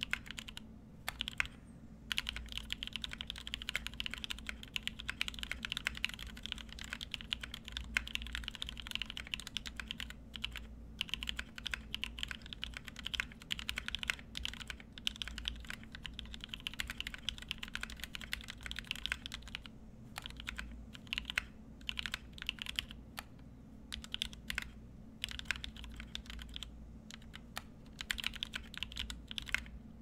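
Typing on a 65% mechanical keyboard with lubed NovelKeys Cream linear switches, a brass plate and PBT keycaps: a steady stream of keystroke clacks with a few short pauses.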